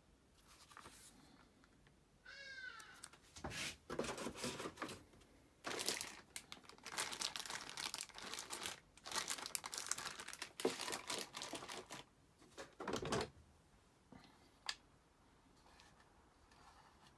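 Packaging being unpacked: irregular rustling, crinkling and tearing in bursts, with a short rising squeak about two and a half seconds in and a single sharp click near the end.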